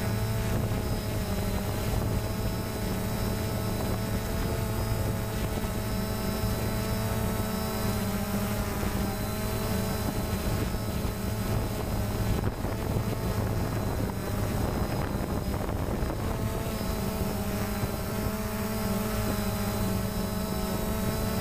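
DJI Phantom quadcopter's motors and propellers buzzing steadily while it hovers, heard close from the camera on the drone itself. The pitch wavers for a few seconds in the middle as the motors change speed.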